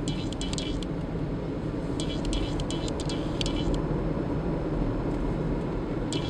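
Dashboard trim squeaking inside a moving 2005 Toyota Wish's cabin: bunches of short, high squeaks, once near the start and again from about two to nearly four seconds in, over steady road and engine noise at about 40 km/h. The exact source behind the panel is unknown.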